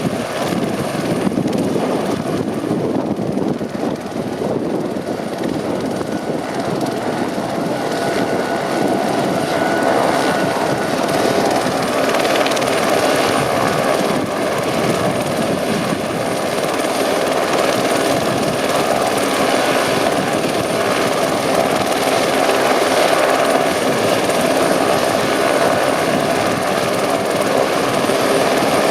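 Eurocopter AS350 Ecureuil single-turbine helicopter running close by: a continuous rotor and turbine noise that grows somewhat louder about twelve seconds in.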